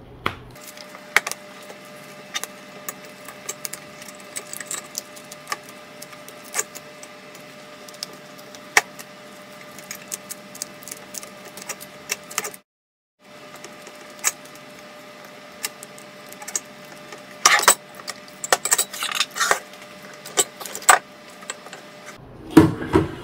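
Scattered small metallic clicks and clatter of hand work inside a UPS: a screwdriver on the battery-bracket bolts, and the steel case and lead-acid battery being handled. The clicks are busiest about three-quarters of the way through, over a faint steady hum, with a brief dropout about halfway.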